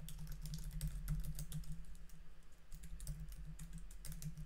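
Typing on a computer keyboard: a run of light, irregular key clicks over a low steady hum.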